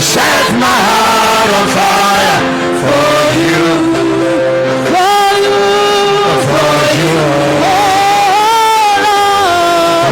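Worship music with a voice singing long held notes that waver in pitch.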